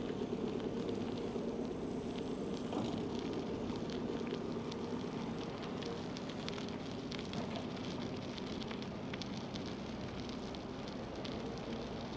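Riding noise from a moving bicycle: a steady rumble of tyres and road with a low hum, overlaid by many small irregular crackling ticks.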